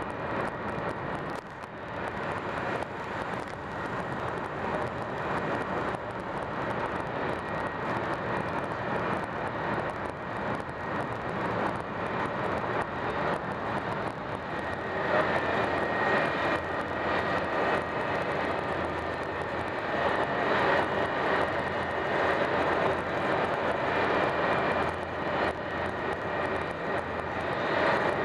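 Italo ETR 575 (Alstom AGV) high-speed train heard from inside the passenger car while running at high speed: a steady rushing noise with a faint high whine, growing louder about halfway through.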